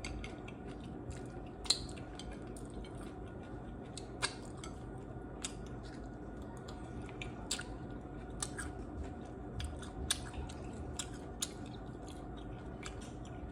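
Close-miked eating of beef tacos and tostadas: quiet chewing and biting, with scattered short, sharp crunches and clicks.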